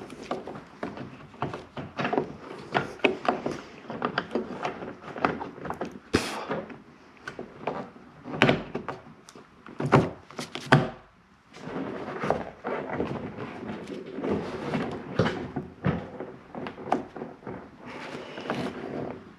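Irregular clicks, rattles and knocks of a door handle and its linkage rod being worked into a car door, the plastic and metal parts bumping against the hollow door shell. There are a few heavier thunks about halfway through.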